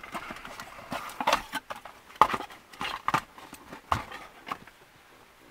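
Irregular clicks and knocks of hard plastic being handled: wiring connectors and trim around the emptied radio slot of a car dashboard. The sharpest knock comes a little over two seconds in.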